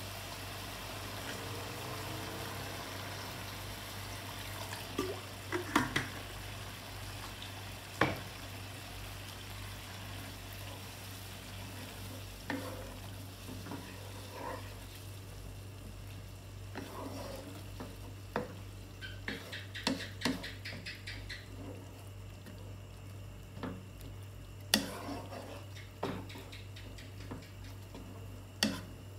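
Tomato meat sauce sizzling and bubbling in a frying pan on a gas burner. A wooden spatula stirs it, scraping and knocking against the pan every few seconds, with the sharpest knock near the end. A steady low hum runs underneath.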